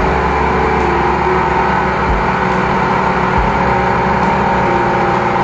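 High-pressure drain jetter running steadily at a constant pitch while its hose is fed down a blocked sewer drain to blast out grease.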